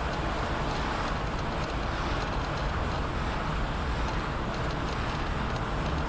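Car driving along a street: steady engine and road noise heard from inside the cabin.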